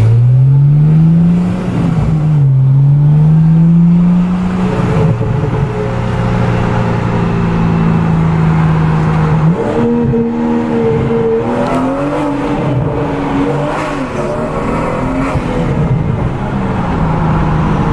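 2018 BMW 340i's turbocharged B58 inline-six, breathing through an aftermarket Agency Power intake, pulling hard under acceleration. The revs climb, drop at an upshift about two seconds in and climb again, then hold steady, with further rises and falls in revs later on.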